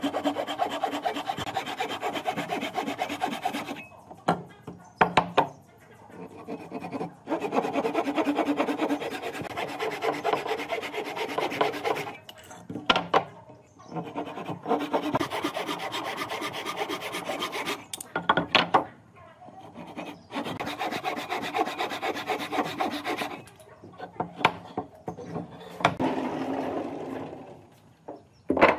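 Wood being scraped with a hand tool in fast rasping strokes, in runs of a few seconds with short pauses between. A few sharp knocks fall in the pauses.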